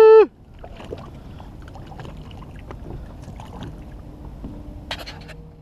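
A loud, steady, pitched tone cuts off about a quarter second in. After it comes low, even boat-and-water noise with scattered small clicks and one sharper click near the end, as a small barracuda is reeled in beside the boat.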